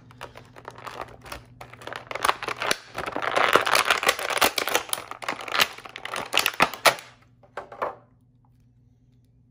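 Thin clear plastic blister tray crinkling and crackling as an action figure is pulled out of it, loudest in the middle and thinning to a few clicks before stopping near the end.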